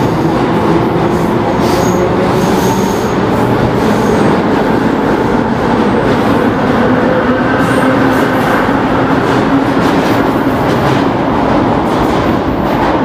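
Vintage New York City subway train, with cars from the 1930s to 1970s, running past a station platform: a loud, steady rumble and clatter of steel wheels on the rails, with brief high wheel squeals a couple of seconds in.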